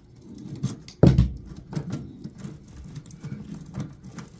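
Clicks and knocks of hand tools and metal parts being handled while the wiring is disconnected from an HVAC unit, with one heavy thump about a second in.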